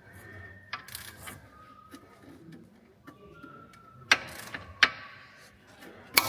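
Ratcheting torque wrench tightening a suspension bolt to 180 Nm: scattered sharp metallic clicks and knocks with faint ringing between them.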